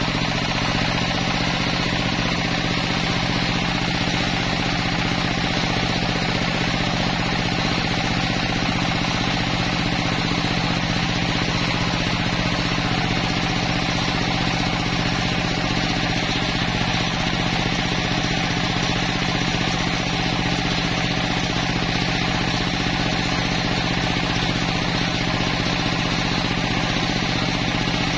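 A home-built table circular saw ripping a log lengthwise: the large blade cuts steadily through the wood over the even drone of the motor driving it.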